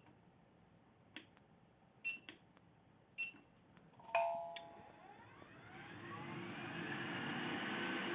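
Small tool clicks on the bench, then a sharp click with a brief chime-like ring about four seconds in, followed by a blower spinning up: a rising whine and a steady hiss that grows louder to the end, typical of a hot-air rework station being switched on.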